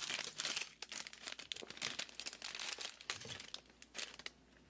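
Plastic LEGO Minifigures blind bag crinkling and crackling in the hands as it is handled and pulled open, in quick irregular crackles that thin out near the end.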